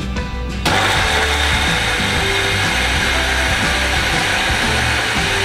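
Electric blender's dry-grinding cup starting suddenly about a second in and running steadily, its blade grinding toasted bread into breadcrumbs.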